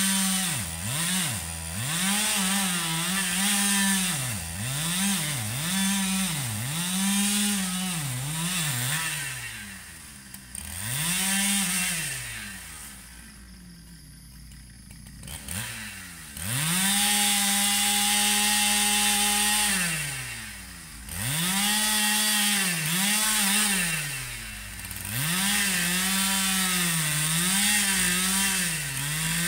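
Husqvarna 395 two-stroke chainsaw revving again and again, rising to full throttle and falling back. About halfway through it holds one long, steady full-throttle run, and it drops briefly to a low idle in between.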